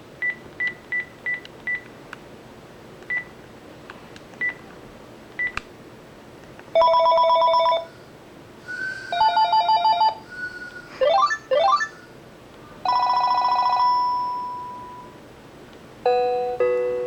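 Panasonic KX-TGE273 cordless phone handset giving a string of short electronic beeps, then playing brief samples of several different ringtones one after another: warbling trills, a pair of rising sweeps, a ring that fades out, and the opening notes of a melody near the end.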